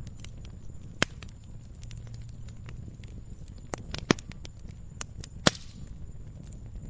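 Wood fire burning, with a low steady rumble and irregular sharp crackles and pops from the logs, the loudest about a second in, around four seconds in and at about five and a half seconds, the last followed by a brief hiss.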